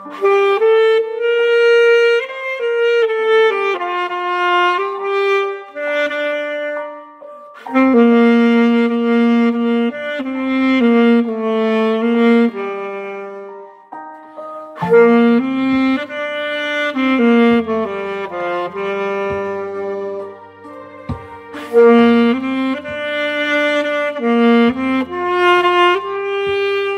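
Instrumental music: a solo wind instrument plays a song melody in long held notes and phrases over a backing track with a bass line, pausing briefly between phrases.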